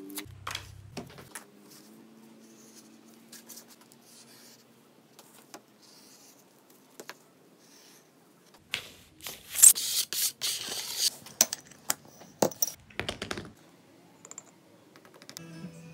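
Hand-stitching a leather wallet: waxed thread drawn through the stitching holes rasps loudly for a couple of seconds in the middle. Scattered clicks, taps and scratches of handling come before and after.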